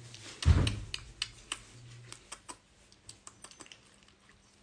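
Handling noises: a soft thump about half a second in, then scattered light clicks and taps that thin out and grow fainter.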